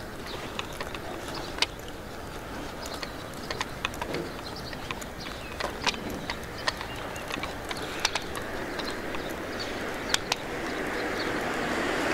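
Footsteps and the taps of a walking stick on a paved street, sharp irregular clicks about once a second. A vehicle approaches and grows louder near the end.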